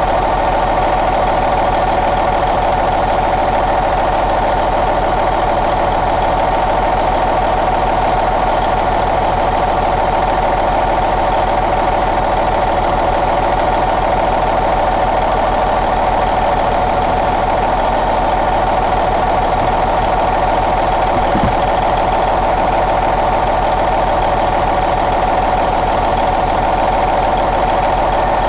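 Cummins N14 CELECT Plus inline-six turbo diesel running steadily at idle, its sound even and unchanging.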